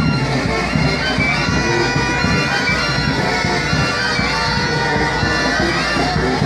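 Loud music carried by held wind-instrument notes over a dense low accompaniment, continuous throughout.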